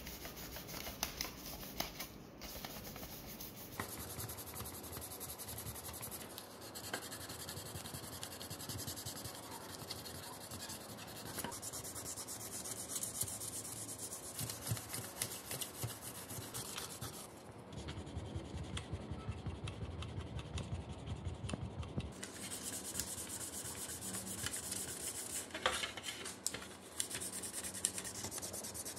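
Sandpaper rubbed by hand over the plastic case of a Panasonic landline desk phone, in rapid back-and-forth scratchy strokes.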